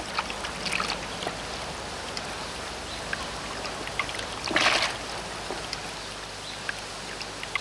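Water trickling and splashing in a plastic bucket as hands rummage among live roach and lift them out, with small drips and one louder splash about halfway through.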